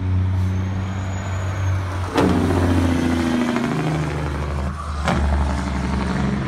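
Semi truck's diesel engine brake (Jake brake) running loud under load as the truck comes down the track. The sound breaks off sharply and picks up again twice, about two seconds in and about five seconds in, with the pitch stepping down after the first break.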